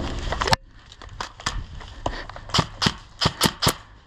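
A burst of noise that cuts off abruptly about half a second in, then a series of sharp, irregularly spaced clicks, about nine in three seconds.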